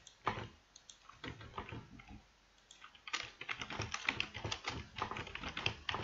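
Typing on a computer keyboard: a few scattered keystrokes, then a quick steady run of keystrokes from about halfway through.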